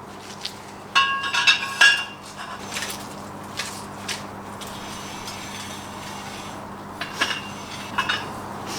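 Metal clinks and knocks from a steel ground screw and its hand-turning tool as the screw is wound into the soil by hand: a cluster of ringing clinks about a second in, then a few sharper knocks near the end.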